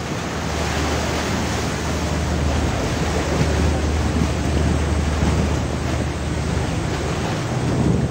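Steady loud rushing noise over a low drone of shipboard machinery on a large fishing vessel; the drone weakens near the end.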